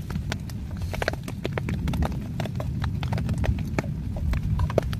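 Wood stove fire crackling: irregular sharp pops and clicks, several a second, over a steady low rumble.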